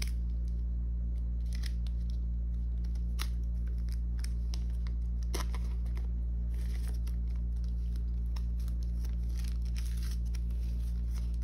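Photocards and clear plastic binder sleeves rustling and scraping as cards are slid into the pockets, in scattered short scratches. A steady low hum runs underneath.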